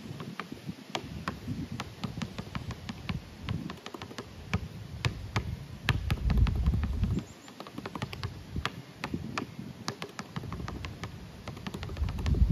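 Basketball being dribbled hard on an outdoor concrete court: a steady run of sharp bounces, about two to three a second, with crossovers and around-the-leg dribbles. A low rumble swells under it about six seconds in and again near the end.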